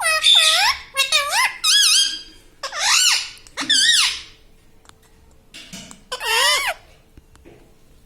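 Rose-ringed (ringneck) parakeet calling: a run of loud, high-pitched squawky calls, each sweeping up and down in pitch, four or five in the first four seconds and one more around six seconds in.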